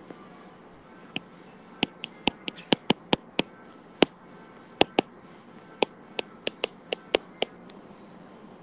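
Stylus tip clicking against a tablet screen while words are handwritten: about twenty sharp, irregular clicks, bunched in quick runs.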